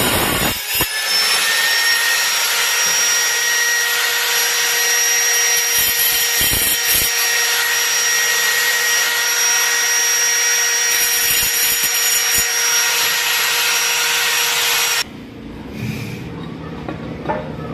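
Electric angle grinder with a diamond blade cutting porcelain tile: a steady high whine over a grinding hiss, which stops abruptly about fifteen seconds in. After it come a few light clinks and scrapes as a cut tile is set in place on a tiled floor.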